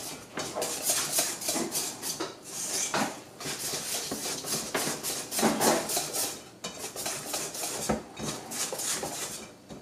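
Wire whisk beating in a stainless steel mixing bowl, its wires scraping and clinking against the metal in quick, repeated strokes as oat flour is mixed into a wet banana batter.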